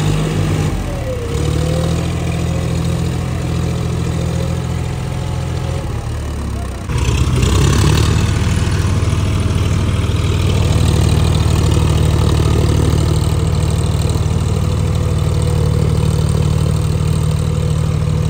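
Diesel engines of two farm tractors, a John Deere and a Mahindra, running steadily under load as one tows the other through deep paddy-field mud. About seven seconds in, the sound jumps suddenly to a louder, steady engine note.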